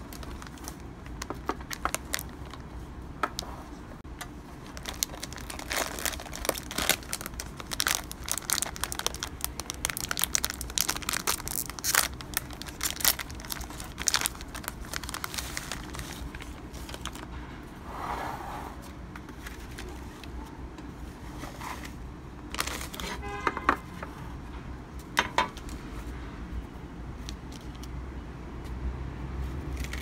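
Clear plastic wrapping crinkling and rustling as it is handled over cookies in a metal tin, densest through the first half. Later come a few sharp clicks and taps as cookies are lifted from the tin's tray, over a low steady hum.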